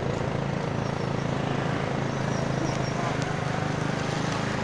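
Steady hum of a vehicle's engine with road noise, heard from aboard an open-sided vehicle driving along a city street.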